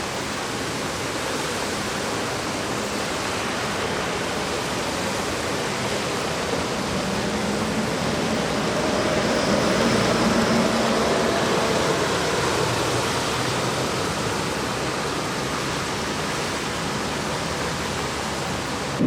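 Steady rushing of floodwater from a burst water main pouring along the street, with a faint engine hum swelling and fading around the middle.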